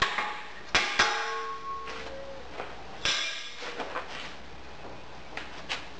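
Sheet-steel moulding flask struck and clanging as a sand mould is knocked out: three sharp metal clangs in the first second, the last ringing on for about a second, another clang about three seconds in, then a few lighter knocks near the end.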